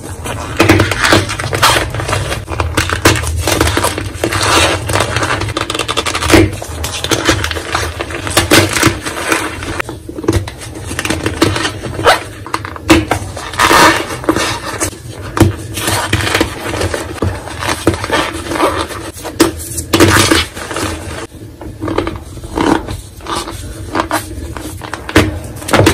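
Hands squeezing and crushing fresh blocks of gym chalk packed in cornstarch: a dense, irregular crunching and crackling as the chalk crumbles, mixed with the squeak of compressed cornstarch.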